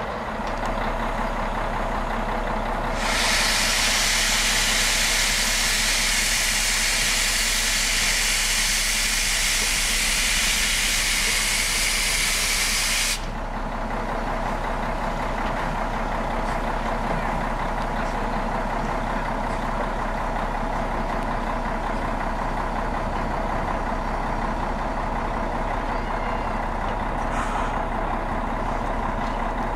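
Steam locomotive blowing off steam: a loud hiss starts about three seconds in, holds steady for about ten seconds and cuts off suddenly, over a steady hum from the standing locomotive.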